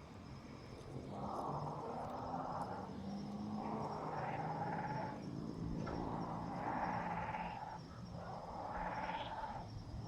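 Nestlings giving repeated raspy, hissing calls, about five of them, each one to two seconds long and rising in pitch at its end.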